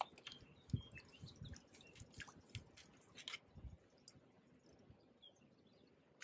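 Faint, rapid clicking and a few soft knocks from fishing tackle being handled at close range, dying away after about three and a half seconds.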